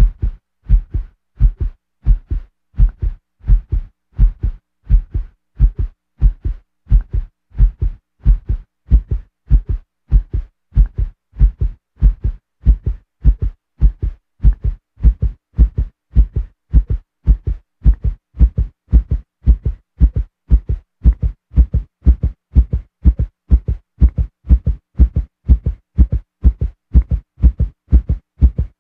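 Heartbeat-like pulse of low, paired thumps repeating at an even rate.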